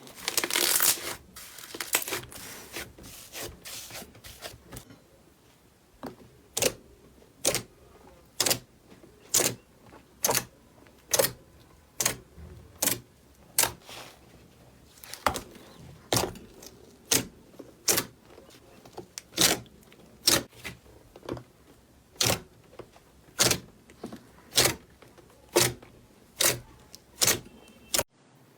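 Slime being handled for ASMR: a dense crackling for the first few seconds, then sharp pops or clicks about once a second.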